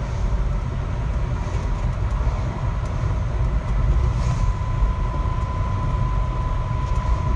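Car on the move, heard from inside the cabin: a steady low road and engine rumble with a thin, steady whine above it that grows a little stronger in the second half.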